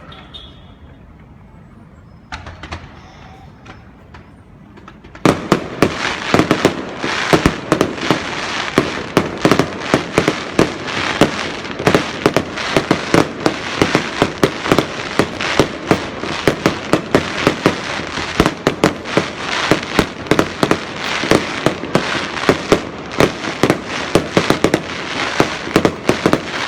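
Fireworks going off: a few scattered pops, then from about five seconds in a dense, rapid barrage of sharp bangs and crackles, several a second, that tails off near the end.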